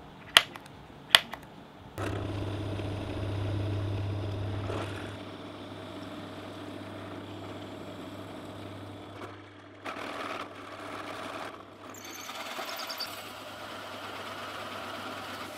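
Two sharp clicks in the first second and a half. Then a benchtop drill press motor starts about two seconds in and runs with a steady hum. Its bit bores into a mahogany block, and later a hole saw cuts into plywood, heard as uneven bursts of cutting noise in the second half.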